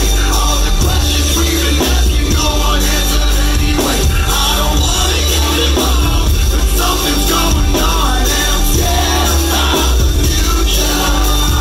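Loud live band music through a club PA, with heavy bass, drums and vocals.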